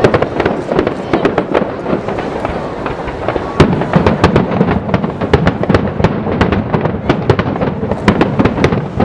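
Aerial fireworks display: a rapid, unbroken string of bangs and crackling over a low rumble, with one louder bang about three and a half seconds in.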